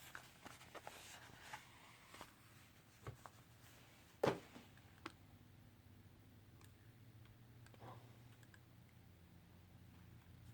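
Faint handling sounds of a cassette player and its felt case: scattered small clicks and taps, with one short, louder brush of cloth about four seconds in.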